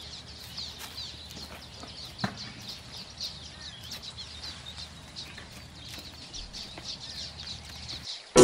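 Small birds chirping rapidly and without pause, several high chirps a second, over faint outdoor background noise. A single louder short sound comes about two seconds in, and the chirping stops shortly before the end.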